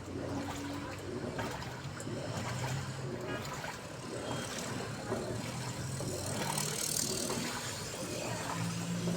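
Daewoo washing machine running: a low motor hum that shifts in pitch, over the sound of water moving in the drum.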